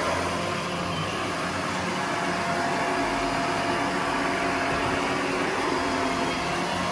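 Shark AZ950UK upright vacuum cleaner running steadily: an even rush of air with a few steady tones from the motor.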